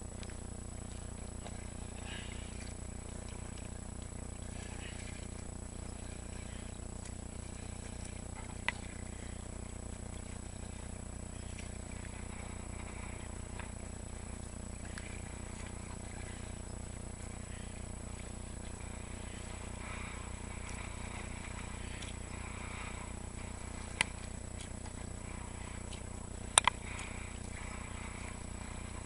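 Steady low hum and hiss from a kayak-mounted camera while the kayak is paddled, with a thin high whine. A few sharp clicks of the paddle knocking the kayak hull, the loudest a quick double knock near the end.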